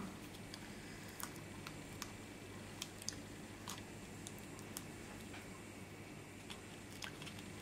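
Faint, scattered small clicks and taps of paper craft pieces being handled and pressed down while foam adhesive pop dots are stuck on, over a low steady hum.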